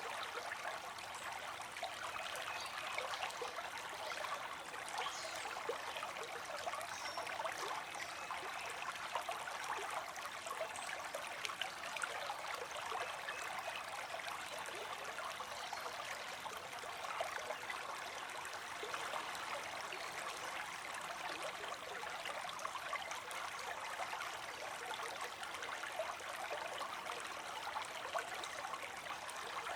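Small creek running over rocks: steady trickling and burbling water, with fine splashes throughout.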